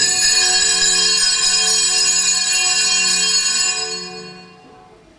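Altar bells rung at the consecration of the Mass: a sudden bright, shimmering peal of several high bells that rings on and dies away about four seconds in.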